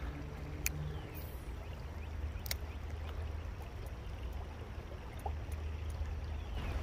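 Small creek running over a stony riffle, a steady rush of water with a low rumble underneath. Two faint sharp clicks, about a second and two and a half seconds in.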